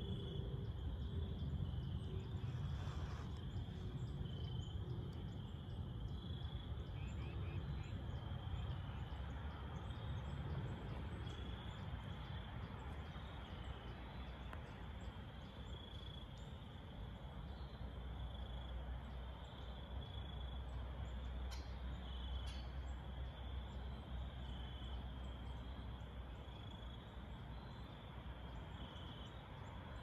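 Crickets chirping in short, even notes every second or two, over a low steady rumble.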